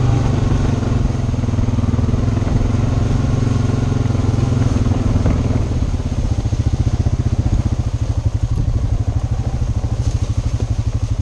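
2007 Honda Rancher 420 ATV's single-cylinder four-stroke engine running as it rides. About six seconds in it drops to a slower, evenly pulsing idle.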